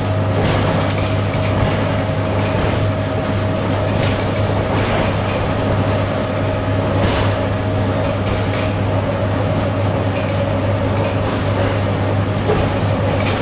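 Steady running noise inside a moving ED9M AC electric multiple unit car: a constant low hum with a steady higher tone above it, over even rolling noise, with a few faint clicks.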